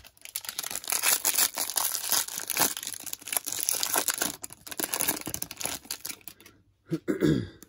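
Foil wrapper of a Topps baseball card pack crinkling and tearing as hands pull it open, a run of small crackles for about six seconds. Near the end there is a short, louder rubbing sound as the stack of cards slides free.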